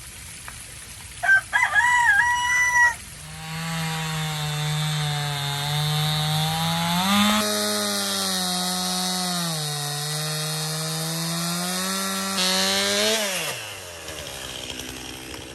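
A rooster crows once, briefly. Then a motor runs with a steady hum for about ten seconds, wavering slightly in pitch, and winds down with a quick drop in pitch near the end.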